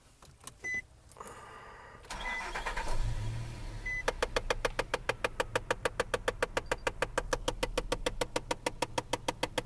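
Nissan Xterra starting up, its engine settling to idle, then a fast, even clicking from behind the dash at about seven clicks a second, starting about four seconds in. The clicking is the HVAC recirculation flap door's actuator trying to close the door further than it needs to, a known Xterra fault at start-up.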